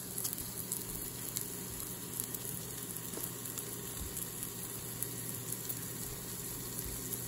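A New York strip steak and a pork chop sizzling steadily on the hot infrared grate of a Philips Smoke-less Indoor Grill, with scattered small crackles of spitting fat and a steady low hum underneath.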